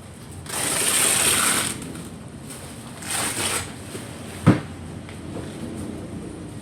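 Softbox fabric and fittings being handled during assembly. There are two rasping, tearing-like rustles, the first about a second long, then a single sharp click a moment later.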